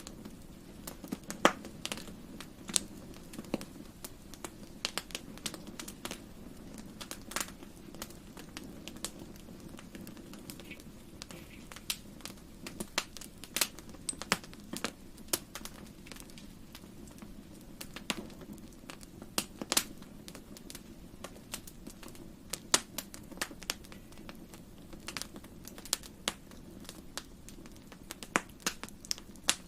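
Wood fire crackling in a fireplace: irregular sharp pops and snaps, several a second, some much louder, over a steady low rumble of the burning logs.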